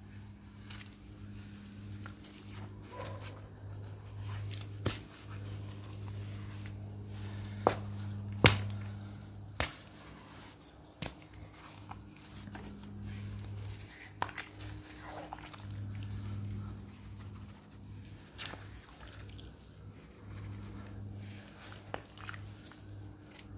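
Wet mud being scooped and handled with a boot and a high-heeled shoe: soft squelching with a few sharp clicks and knocks, the loudest about eight seconds in, over a steady hum.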